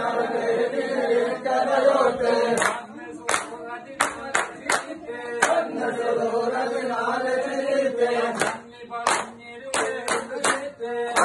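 A group of men singing together in a chant while clapping their hands in rhythm; the sharp claps come in runs, falling away for a few seconds at the start and again in the middle while the singing carries on.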